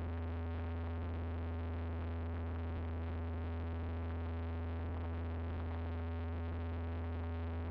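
Cessna 172's piston engine and propeller droning steadily, heard inside the cabin: a constant low hum with a steady tone above it.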